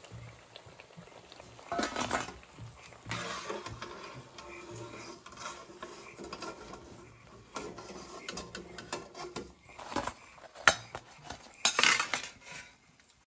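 Steel slotted spoon scraping and clinking against a steel kadai and plate while fried bhajias are lifted out of hot oil and set down, with faint sizzling of the oil. Several sharp metal clinks come near the end.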